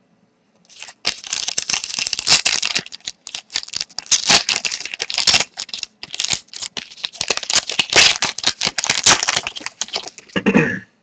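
Foil wrapper of a trading-card pack crinkling and tearing as it is ripped open by hand, starting about a second in, with many small sharp crackles.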